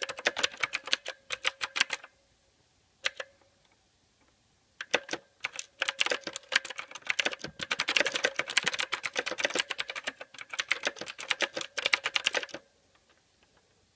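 Typing on a mechanical keyboard: rapid runs of sharp key clicks, with a pause of about three seconds between a short burst at the start and a long burst from about five seconds in to near the end, plus a lone keystroke around three seconds.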